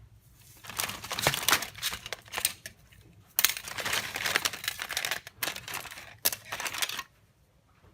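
Crinkling and rustling handling noises in irregular bursts, like something being handled in a wrapper or packaging. They stop suddenly about seven seconds in.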